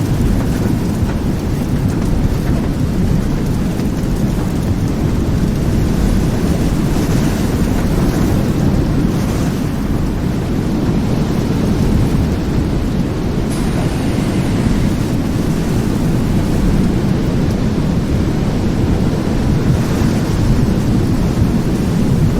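Severe thunderstorm: a loud, steady low rumble with the hiss of heavy rain, without distinct separate thunderclaps.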